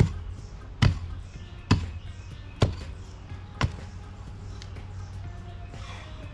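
Long-handled steel digging tool chopping into hard-packed soil: five sharp strikes a little under a second apart, stopping about four seconds in.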